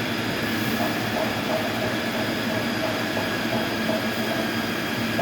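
Large sawmill machinery running steadily, a constant whine over a dense, even noise.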